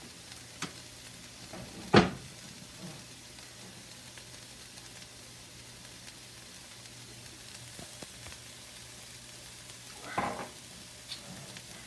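Spring onions frying in oil in a pot, a faint steady sizzle, with one sharp knock against the pan about two seconds in and a short vocal sound near the end.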